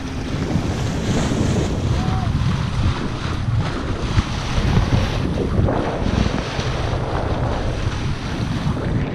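Wind buffeting the microphone, over water rushing and splashing along the bow of a small sailboat under way.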